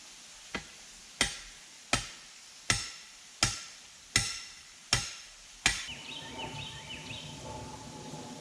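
Hammer blows on a nail: a light tap, then seven hard strikes about three-quarters of a second apart, each with a short metallic ring. A few brief chirps follow near the end.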